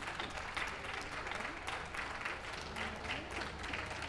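Crowd applause: many people clapping steadily, a dense patter of claps.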